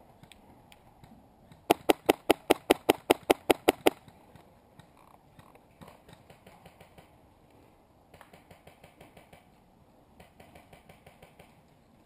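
Airsoft rifle firing a quick string of about thirteen shots, roughly six a second, lasting about two seconds, each shot a sharp crack. Later, fainter runs of rapid clicking follow.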